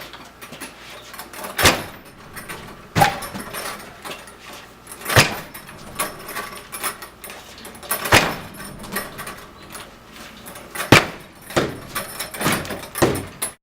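A door locked with a deadbolt being struck again and again by a swinging 90-pound bag: about six heavy bangs, two to three seconds apart, each followed by a brief rattle of the door in its frame, with smaller knocks in between.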